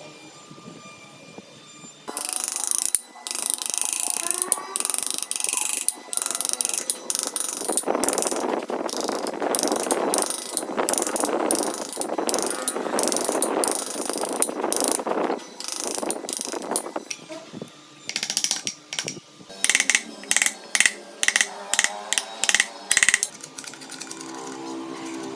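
Wood being worked with carving tools: a rapid run of scraping and rasping strokes, closing with a series of sharp strokes about two a second.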